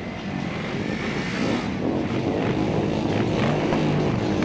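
Motorcycle engines running, their pitch rising and falling as they are revved.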